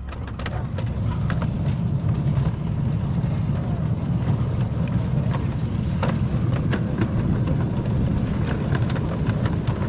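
Miniature ride-on railway train rolling along the track: a steady low rumble of steel wheels on rail with scattered sharp clicks, building up over the first second or so as it gathers speed.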